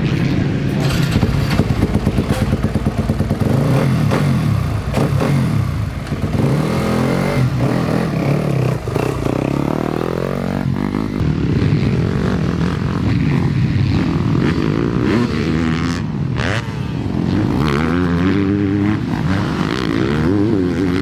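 Motocross dirt bike engines running, the revs repeatedly rising and falling as the bikes accelerate and back off.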